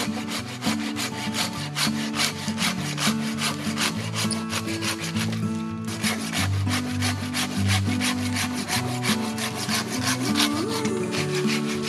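Hand saw cutting dry deadwood for firewood in quick, even back-and-forth strokes, over background music.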